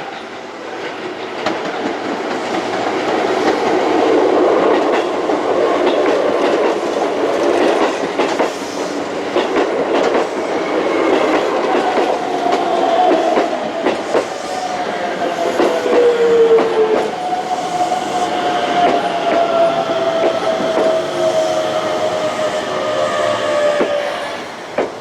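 Electric commuter train running on the rails, its wheels clicking over the rail joints. In the second half a high whine slowly falls in pitch.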